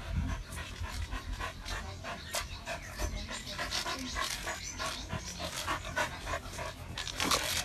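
A dog panting, with scattered short clicks and scrapes mixed in.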